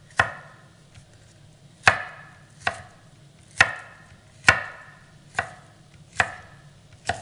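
Chef's knife slicing a green bell pepper into strips on a wooden cutting board: eight sharp chops about a second apart, the blade knocking the board with each cut.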